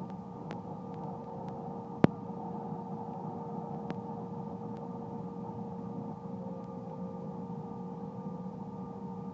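Inside the cabin of a regional jet moving slowly on the ground: a steady hum and rush from its jet engines at low power, with one sharp click about two seconds in.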